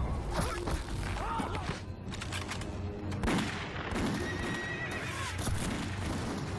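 Horses neighing and whinnying in several short calls, with hooves shuffling, over a film score. A sharp crack cuts in about three seconds in.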